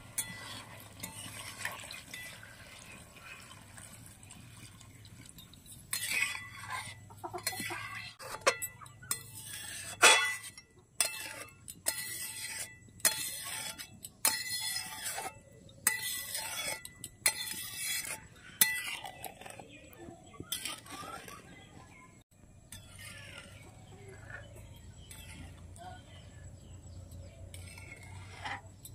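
Metal spatula scraping and clinking against the sides of a large metal kadai while stirring a simmering curry. The strokes come in a quick run through the middle, with quieter scraping before and after.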